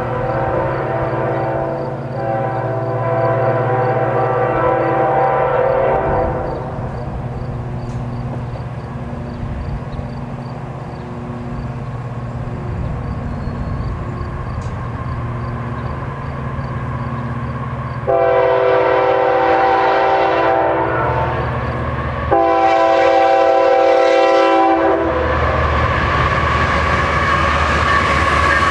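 A CN freight train's diesel locomotive horn sounding as the train approaches. One long blast fades out about six seconds in, then two louder long blasts come at about 18 and 22 seconds in. Near the end the locomotives' diesel engines pass close by with a deep rumble.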